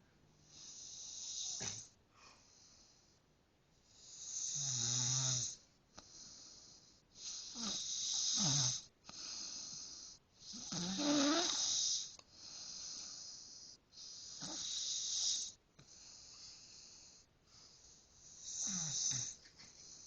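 A man snoring heavily in his sleep, with a loud, rattling snore on each breath, repeating every three to four seconds.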